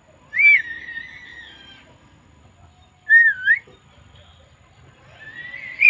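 Javan myna whistling: a loud whistle about a third of a second in that fades out over a second or so, a short looping whistle that dips and rises about three seconds in, and a long drawn-out whistle building near the end.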